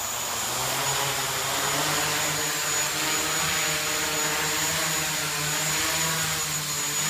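A 3D-printed quadcopter's four electric motors and propellers whirring as it lifts off and hovers low. The hum rises in pitch between one and two seconds in, then holds steady with small wavers.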